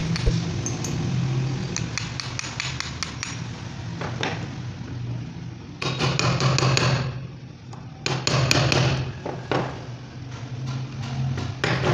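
Repeated knocks and taps, as of a hammer or tool striking, over a steady low hum, with denser stretches of rattling noise about six and about eight seconds in.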